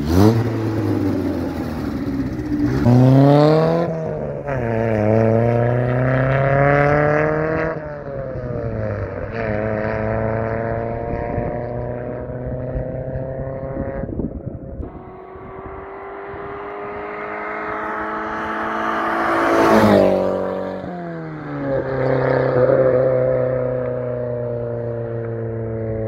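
Chevrolet Corsa 1.6 four-cylinder engine through a straight-through dual exhaust, accelerating hard through the gears. The note climbs, drops at each upshift, and climbs again. It swells to its loudest about twenty seconds in, then falls in pitch and runs on at a steadier note.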